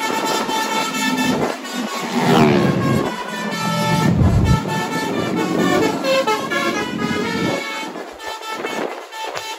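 Multi-tone musical 'telolet' horn on a Shanum Trans Jetbus 5 coach, sounding a run of changing notes with a sweeping glide about two seconds in. A deep rumble comes in around four seconds in.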